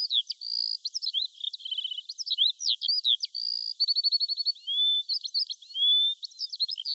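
Songbird singing a quick, varied song of chirps, slurred whistles and rapid trills of even notes, with almost no pause between phrases; only the high, thin part of the sound is present.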